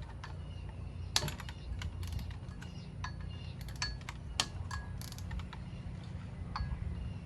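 Irregular metallic clicks and clinks of a wrench working the water pump pulley bolts on a 2003 Mustang GT engine, breaking them loose while the drive belt holds the pulley still.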